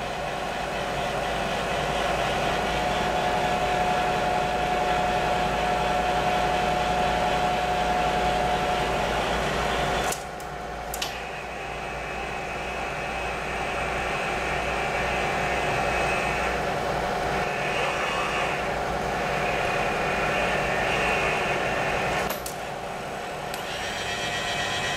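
Bridgeport Series II Special milling machine running, with the Bridgeport power feed motor driving the table along its ways; a steady machine hum. The sound drops and changes abruptly about ten seconds in and again near the end as the feed is switched.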